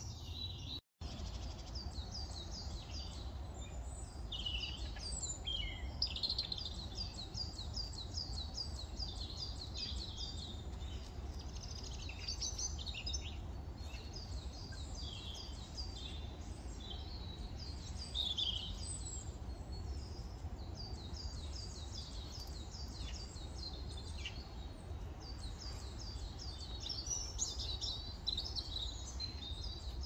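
Small songbirds singing throughout, in quick runs of short repeated high notes with overlapping calls, over a steady low background rumble. The sound drops out completely for a moment just under a second in.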